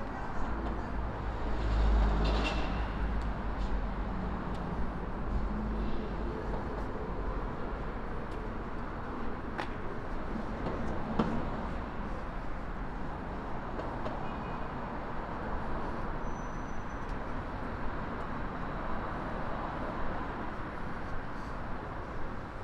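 City street ambience: a steady hum of traffic, with a low rumble swelling about two seconds in and a couple of sharp clicks near the middle.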